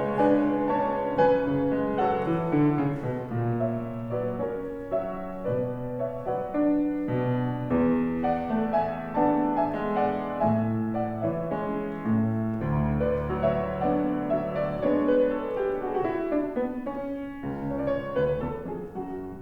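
A piano playing a slow piece of music with many overlapping held notes.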